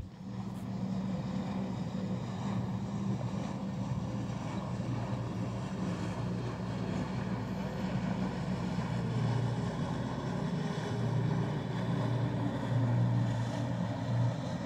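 Motorboat engine running as the boat passes on the river: a steady low drone that grows a little louder in the second half.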